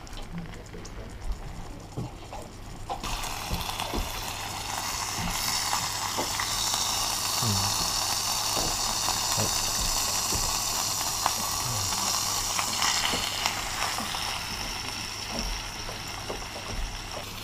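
Steak and hot fat sizzling in a small camping pan on a gas-canister stove. The sizzle comes in abruptly about three seconds in, is strongest in the middle and eases off near the end, with light clicks of tongs and a spatula against the pan.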